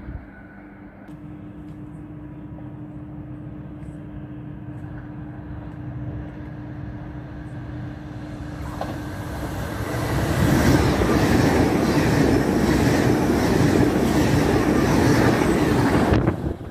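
A train approaching with a faint steady hum, then passing close by with a loud rush of wheels on rails for about six seconds. The sound cuts off suddenly near the end.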